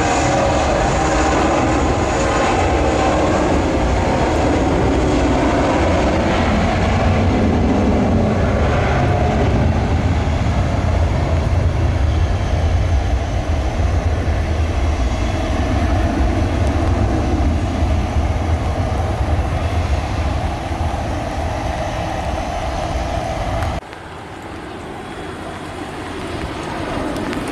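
Jet airliner engines running loud as the aircraft rolls along a rain-soaked runway: a steady low rumble under a wide hiss. About 24 s in the sound cuts suddenly to a quieter, more distant jet hum from an airliner on approach.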